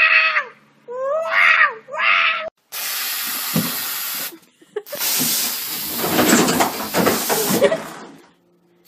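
A cat yowling twice in drawn-out, arching calls that sound like "wow". About two and a half seconds in, a steady hiss starts and lasts about a second and a half. It is followed by a longer, rougher hissing rush that fades out near the end.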